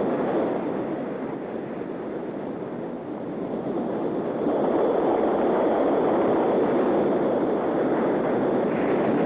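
Ocean surf washing in on a beach, a steady rushing wash that swells louder about four and a half seconds in as a wave comes in.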